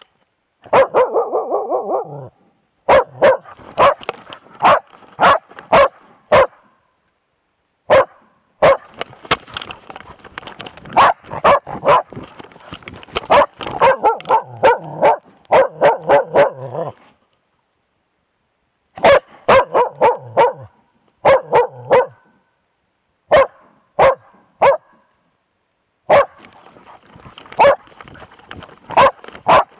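Young elk-hunting dog barking at moose in fast, loud runs of sharp barks, several a second, with short pauses between runs. The barks are very close and loud because the microphone is on the dog's own body.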